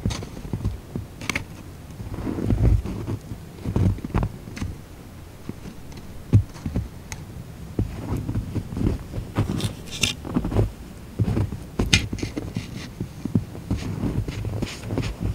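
A person moving about in snow and handling skis: irregular low thuds and shuffling, with a few sharp knocks near the start and twice in the last third.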